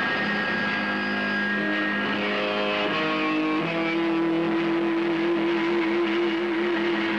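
Distorted electric guitar through an amp, droning on long held notes. It steps to new pitches about three seconds in, and the last held note wavers near the end.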